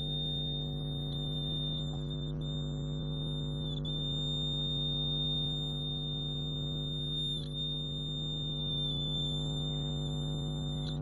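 Homemade 555-timer buzzer sounding through a small speaker: a steady electronic buzz with a thin high-pitched tone over a low hum, the high tone wavering briefly twice.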